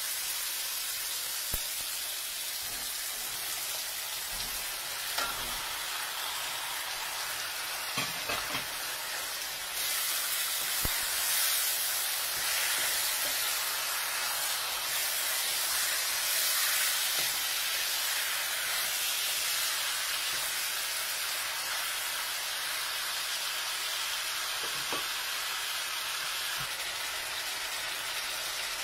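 Onion, garlic, tomato and chicken pieces sizzling in a hot stainless wok, stirred with a spatula that knocks against the pan now and then. The sizzle grows louder about ten seconds in, once the chicken is in the pan.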